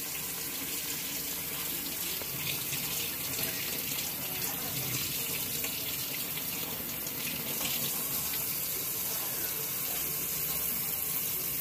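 Water running in a steady, unbroken spray with an even hiss.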